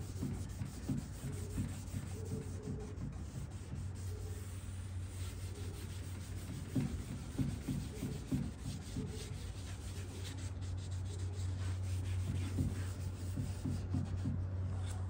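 Cloth rag rubbing gel stain over the wood veneer of a dresser side: soft, irregular wiping strokes, over a steady low hum.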